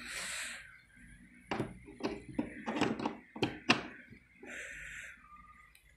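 Parts of a sliding miter saw being handled and fitted: a run of knocks and clicks in the middle, between two short rustling hisses.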